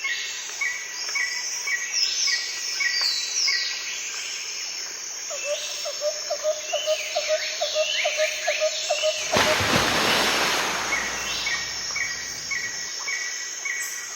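Several birds chirping and calling over a steady outdoor hiss, with short chirps repeated in even runs. About nine seconds in, a rush of noise swells for a second or two.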